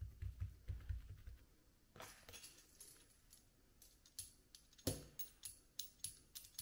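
Quiet background music: a soft low beat for about the first second and a half, then light, tambourine-like jingles about three times a second.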